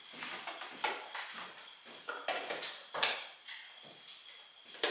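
Condiment bottles and jars being set into refrigerator door shelves: a few light knocks and clinks, the sharpest about three seconds in.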